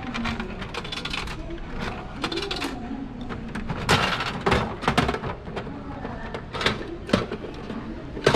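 Capsule toy (gashapon) vending machine being worked by hand. Its crank is turned with a few sharp clicks about four to five seconds in and again around seven seconds, and a clack near the end as the capsule's chute flap is opened.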